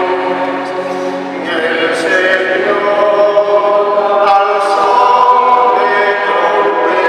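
A man singing liturgical chant into a microphone in long held notes, the responsorial psalm sung after the first reading of Mass.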